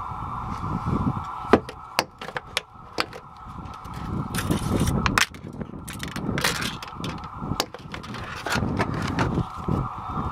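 Handling noise from a camera being moved around inside a jet ski's engine compartment: scattered clicks and knocks with rubbing and low rumbles, over a steady hum.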